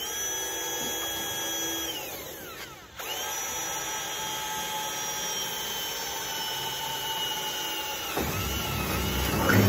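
Cordless drill running at full speed with a steady whine. It spins down about two seconds in, then starts again and runs steadily. Near the end its pitch sags and a rougher grinding joins as the bit bites into the car's rear body panel, drilling holes for Clecos.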